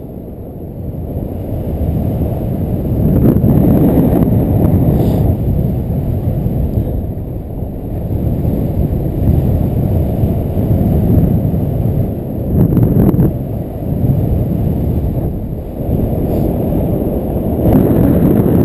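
Wind buffeting an action camera's microphone in paraglider flight: a loud, low rumble that swells and eases every few seconds.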